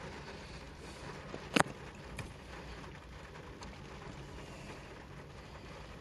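Faint steady background noise, with a sharp click about one and a half seconds in and a lighter click just after two seconds.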